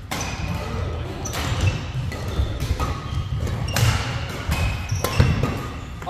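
Badminton doubles rally: racket strikes on the shuttlecock about once a second, with shoes squeaking and footsteps thudding on the wooden court floor.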